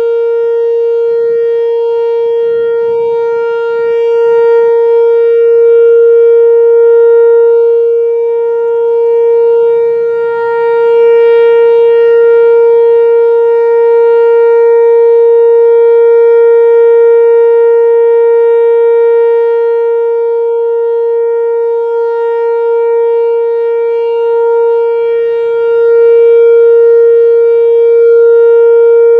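A loud, steady tone held at one unchanging pitch, rich in overtones, like a siren or horn sounding continuously.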